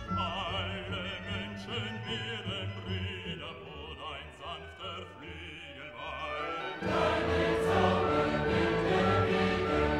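Background music with operatic singing voices held with vibrato, swelling louder and fuller about seven seconds in.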